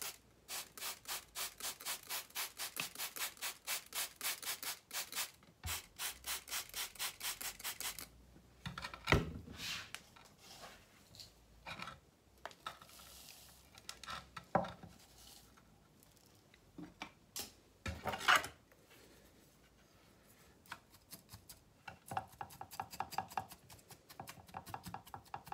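A hand trigger spray bottle squirting water over a small bonsai's foliage in a rapid run of short hisses for about eight seconds. Then a few scattered knocks from the ceramic pot being handled, and near the end a quick scratchy run of a wooden chopstick poking into gritty bonsai substrate.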